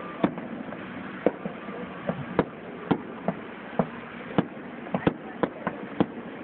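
Aerial fireworks shells bursting: about a dozen sharp bangs at uneven intervals, some in quick pairs, over a steady background noise.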